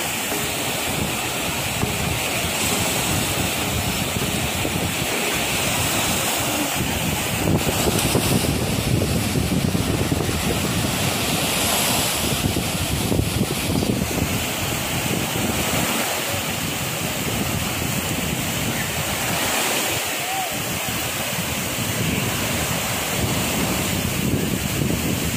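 Small waves breaking and washing in the shallows, with wind gusting over the microphone; a steady rushing wash that swells a little in the middle.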